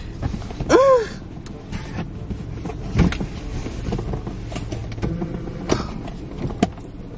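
Knocks and rustling of people shifting about on a car's seats, with a short pitched sound that rises and falls about a second in and several sharp knocks later on.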